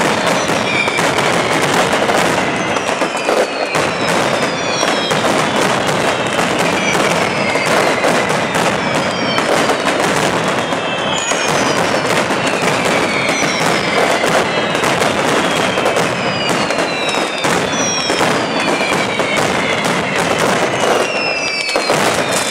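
Mascletà firecrackers going off in a dense, continuous rattle of bangs, with high whistles over it. The whistles fall in pitch, several at a time, starting anew about every second.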